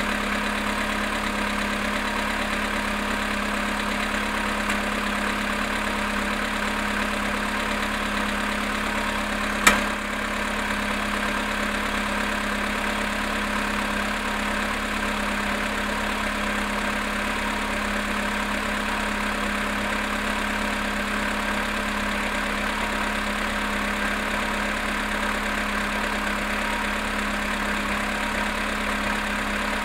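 Volkswagen Polo sedan engine idling cold at −5.5 °C after standing 18 hours, with the engine knock the owner sets out to record. A single sharp click about ten seconds in.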